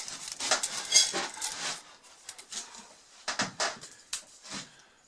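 Light metal clinks, taps and short scrapes from handling the rip fence of a Delta contractor table saw, with a few sharp clicks among them, as the fence and its scale, reading 1/8 inch out, are being set.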